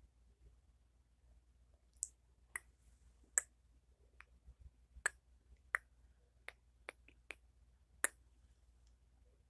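A series of about nine sharp, light plastic clicks and taps, irregularly spaced, from a Barbie doll and a small pink toy nail-polish pen being handled.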